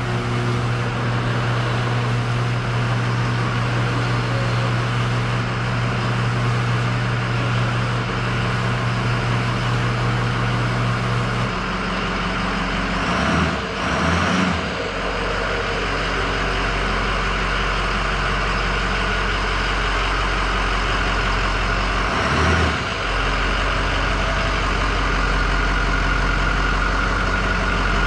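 An overhead garage door opener hums steadily and stops about eleven seconds in, under the running of a 2006 Ford F-250's 6.0-litre Power Stroke V8 diesel as the truck pulls into the garage. The engine swells briefly around thirteen to fourteen seconds in and again about twenty-two seconds in.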